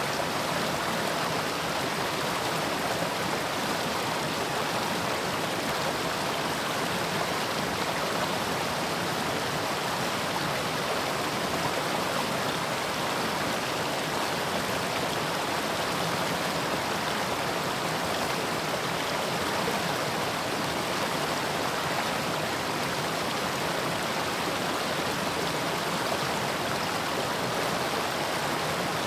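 Mountain stream flowing over rocks: a steady, even rush of water with no breaks or separate splashes.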